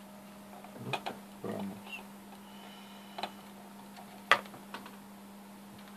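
A small plastic power plug being fumbled onto a circuit board's pin connector, with a few light clicks and one sharp click about four seconds in as it seats. A steady low electrical hum runs underneath.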